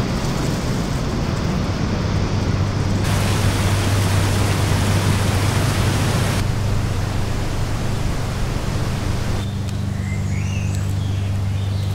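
Steady roar of whitewater rapids and a waterfall, changing abruptly in character about three and six seconds in. Near the end the rush gets quieter and a few short bird chirps come through, over a low steady hum.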